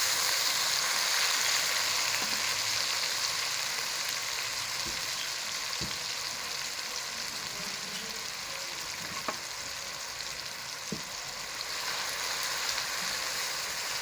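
Onion, garlic and tomato frying in hot oil in a karahi: a steady sizzle that slowly quietens, with a few faint knocks of the stirring spoon.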